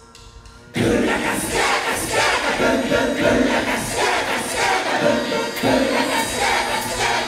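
Drumsticks clicking a count-in, then about three quarters of a second in the live rock band crashes in loud all at once, with drums hitting hard and shouted group vocals over the top.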